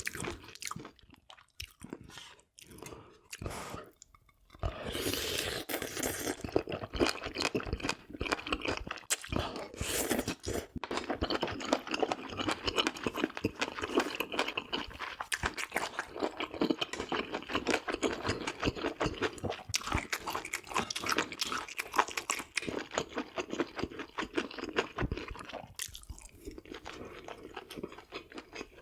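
Close-miked chewing of food, with wet, crunchy bites. It is sparse for the first few seconds, then dense and steady for the rest.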